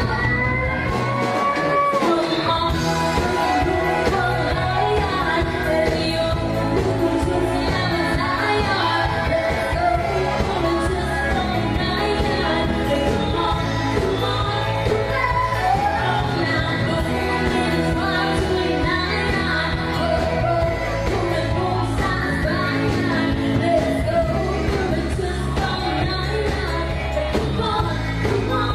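Live pop band playing, with a singer's voice over drums, keyboard and guitar.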